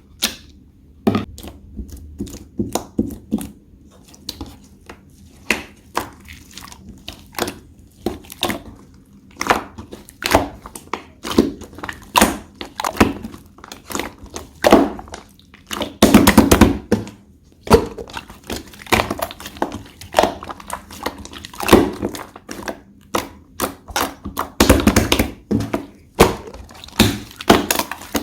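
Slime being pressed and squeezed by hand, making irregular sharp pops and crackles a few times a second, with longer, louder runs of crackling squishes about sixteen and twenty-five seconds in.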